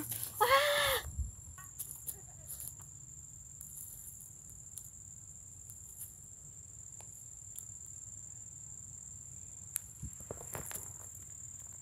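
A steady high-pitched insect drone throughout. A short wordless child's vocal sound comes about half a second in, and faint clicks and rustles of toy figures being handled are scattered through.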